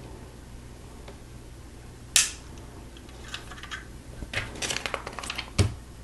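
Small plastic Lego pieces clicking and snapping together: one sharp snap about two seconds in, then a run of small rattling clicks and another sharp snap near the end.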